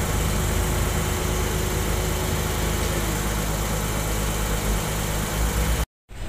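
Heavy construction machinery engine idling steadily, with a low, even hum. It breaks off for a moment near the end.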